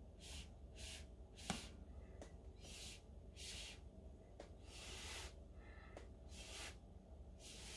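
Faint, soft puffs of hissing air, often in pairs, every second or so, like breathing close to the microphone, with one sharp click about one and a half seconds in.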